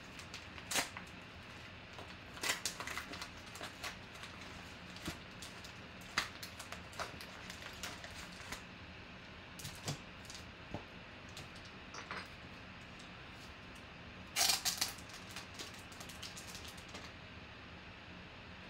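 Hands opening a padded paper envelope and handling a plastic card holder: scattered rustles, crinkles and light clicks, with a short burst of louder crinkling about fourteen seconds in.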